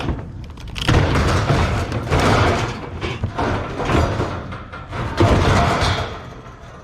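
Scrap metal being handled and loaded: a run of bangs, thuds and scraping from about a second in, easing off near the end.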